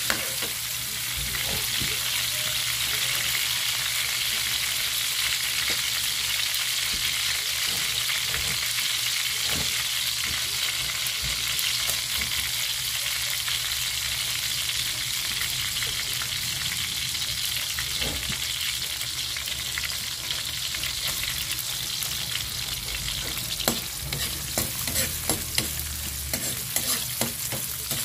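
Chopped ginger and garlic sizzling steadily in hot oil in a steel pan, with a metal spatula scraping and stirring. Sharp clicks and knocks of the spatula against the pan come thick near the end.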